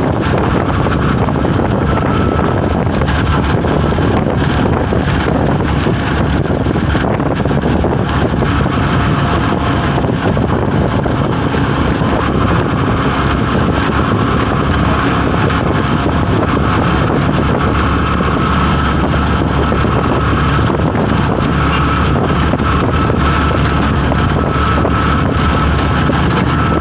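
Wind buffeting the microphone over the steady engine and road noise of a moving open-backed passenger vehicle. A faint steady whine sits on top in the second half.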